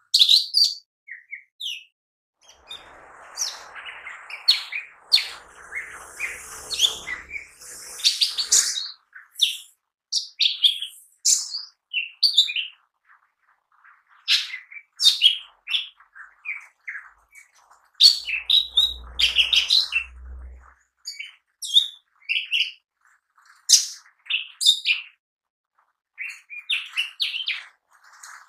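Male lesser green leafbird (cucak ijo mini) singing in a fast, varied run of short high chirps and whistled notes, in clusters separated by brief pauses.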